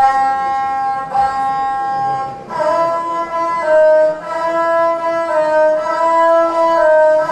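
Gusle, the single-string bowed folk instrument of South Slavic epic song, bowed solo. One long held note runs for about two and a half seconds, then gives way to a run of short stepped notes.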